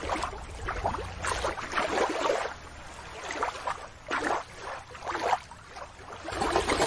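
Water splashing and lapping in irregular bursts, with a low background rumble that drops out about a second and a half in.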